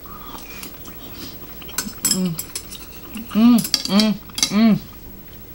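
A woman chewing a mouthful and humming 'mmm' three times in quick succession, each hum rising and falling in pitch. A few light clicks of metal chopsticks against the bowl come just before the hums.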